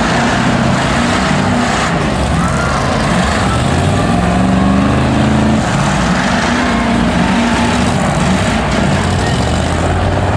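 School bus engines running and revving, pitch rising and falling, over a steady background din.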